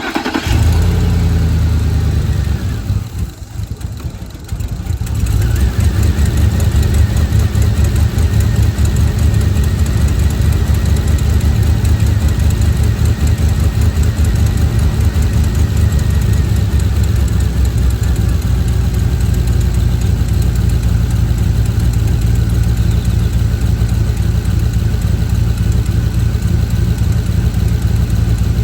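Ford F-150 engine idling roughly, which the owner takes for timing chain trouble. It drops quieter for a few seconds near the start, then runs steadily.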